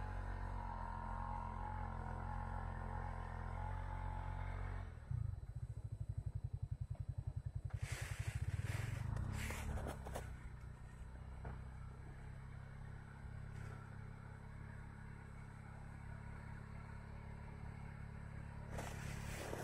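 An engine running, steady at first, then about five seconds in a fast, even pulsing beat that swells for a few seconds before it settles back to a steady hum. Brief rustling noises come in the middle and again near the end.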